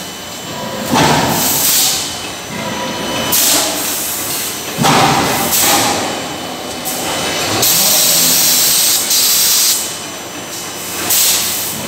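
Forge-shop working sound around an electric screw forging press: loud hissing blasts recur every two seconds or so, one held for over a second near the middle, with heavy knocks among them.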